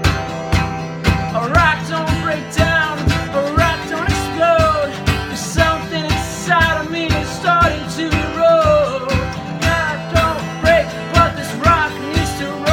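Country-style song: a guitar strummed to a steady beat of about two strokes a second, with a wavering melody line over it.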